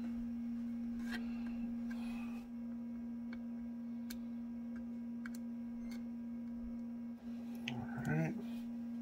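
Steady low electrical hum, with a few faint clicks as 3M VHB double-sided tape is handled and pressed onto the radio's metal chassis. A short murmur of voice comes near the end.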